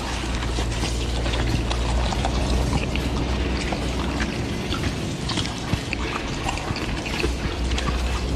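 Liquid pouring and splashing with a crackling, noisy texture, over a steady low drone.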